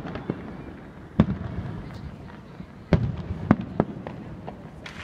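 Aerial fireworks going off: a string of sharp bangs, the loudest about a second in and again around three and three and a half seconds in, with smaller pops between.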